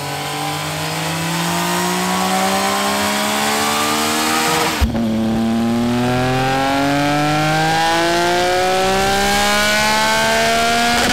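Triumph Speed Triple R's 1050 cc inline-three engine pulling the rear wheel on a dyno roller, its pitch rising steadily, first through the stock exhaust. After a sudden cut about five seconds in, a second rising run plays through an SC Project S1 low-mount exhaust, a 70 mm straight-through pipe with no baffles.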